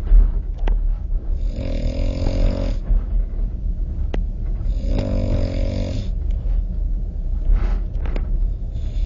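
A man snoring, two long snores about three and a half seconds apart and a weaker breath near the end, over the steady low rumble of the moving train. A few sharp clicks break in between.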